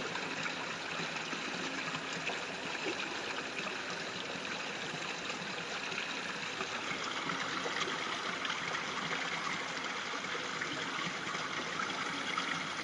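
Steady rushing noise, even and unchanging, like running water.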